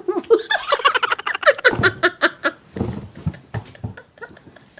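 Women laughing hard in rapid, high-pitched bursts, trailing off into quieter breathy laughs near the end.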